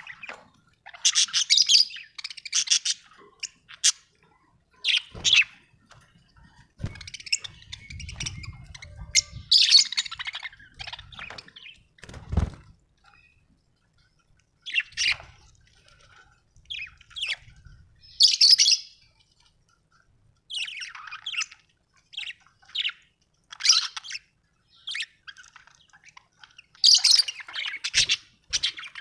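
Budgerigar chirping and chattering in short bursts of high chirps and squawks, with pauses between them. A few low thumps and rumbles are heard in the middle.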